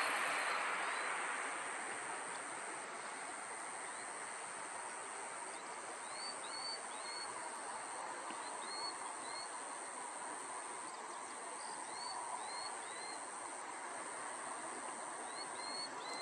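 Outdoor ambience: a steady high insect trill over a broad background hiss. A louder passing sound, likely a vehicle, fades out in the first two seconds. Small groups of two or three short high chirps come every few seconds.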